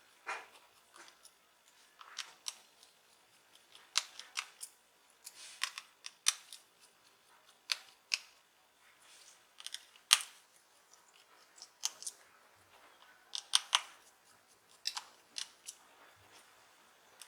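Irregular sharp clicks and taps of small tools and plastic phone parts being handled while a smartphone is taken apart.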